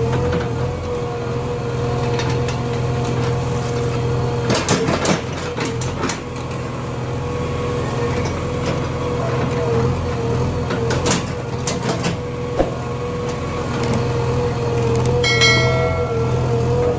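JCB backhoe loader's diesel engine running steadily under load with a steady whine as the backhoe digs, and its bucket clattering against broken concrete and stones in bursts, about five seconds in and again near twelve seconds.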